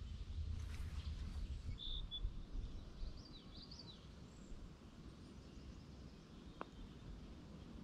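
Wind rumbling on the microphone for the first few seconds, with a bird chirping a few short calls about two to four seconds in.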